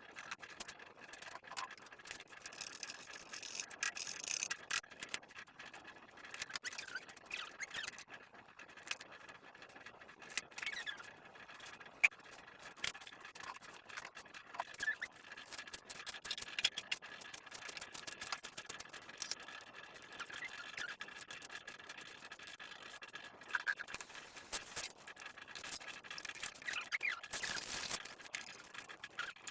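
Kitchen work sounds: irregular scraping, light knocks and clinks of utensils against dishes and a pan.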